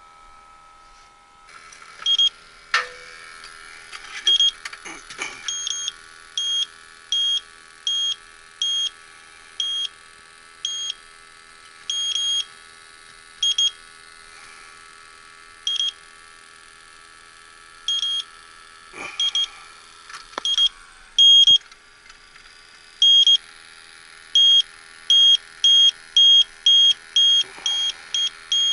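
Electronic refrigerant leak detector beeping in short high tones, at first irregular single beeps about a second apart, then quickening into a fast run of beeps over the last few seconds; faster beeping is this detector's sign of a stronger refrigerant reading. Underneath runs a steady mechanical hum, with a few short knocks.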